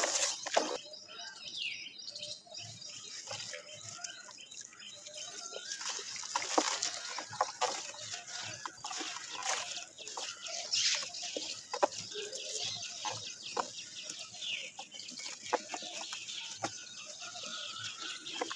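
Muddy water sloshing in a basin, then a large dry block of red dirt crumbling in the hand, lumps and powder dropping into the water with crackles and splashes. Chickens clucking in the background.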